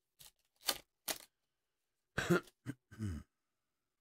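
Topps baseball card pack wrapper crinkling and tearing as it is opened by hand, three short crackles in the first second or so. About two seconds in a person coughs and clears their throat; this is the loudest sound.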